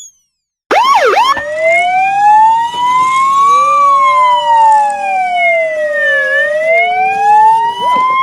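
Police siren wailing. After a short silence it gives a quick whoop, then one long slow rise and fall in pitch, and swoops again near the end.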